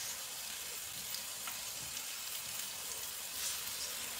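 Thin-sliced pork belly sizzling as it fries: a steady hiss with a few faint pops.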